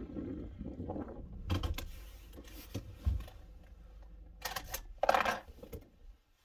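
A low rumble under a string of clicks, knocks and rattles from things being handled inside a car. The loudest, a clatter, comes about five seconds in.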